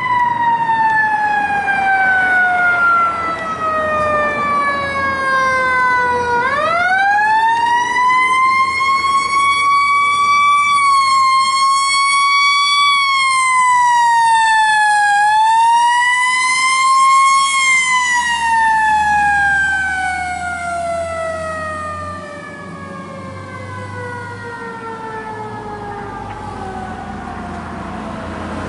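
Fire truck's Federal Q mechanical siren screaming: it winds down, is spun back up about six seconds in and held high with a couple of dips, then coasts down in one long falling wail. The truck's engine runs underneath as it passes.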